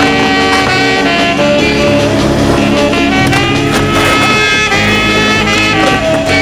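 Background music: a jazzy tune with horn lines over a steady beat.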